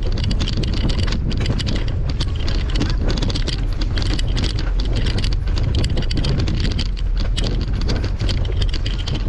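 Wind noise on a bike-mounted GoPro microphone, with a constant patter of small clicks and rattles from the bicycle rolling over rough stone paving.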